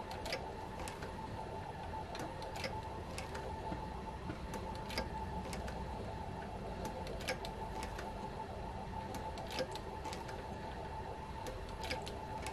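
Cowboy 797 industrial leather sewing machine stitching slowly at its lowest speed setting, each needle stroke a short click, about two a second, over a steady hum.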